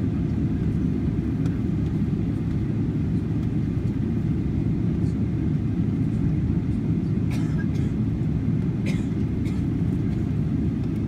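Steady low rumble inside the cabin of a Boeing 777-300ER standing still with its GE90 engines at idle, holding short of the runway. A few faint short cabin noises come in about seven and nine seconds in.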